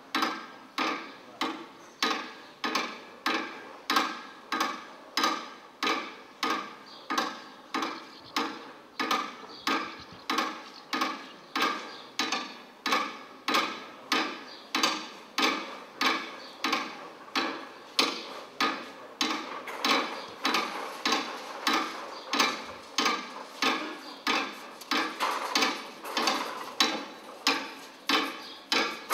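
A metal-legged chair banged against iron window bars in a steady rhythm, about two strikes a second, each strike clanging and ringing briefly.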